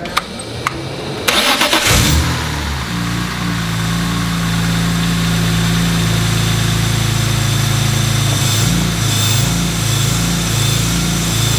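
BMW S54 3.2-litre straight-six, its individual throttle bodies open with the airbox off, started for the first time on a newly fitted MAP sensor and CSL tune. A few light clicks, then the starter cranks briefly and the engine catches about two seconds in. It settles into a steady idle, running good.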